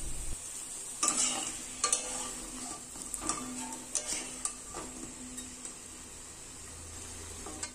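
Potatoes frying in mustard oil in a wok: a steady sizzle, with a metal spatula scraping and knocking against the pan several times as the potatoes are turned.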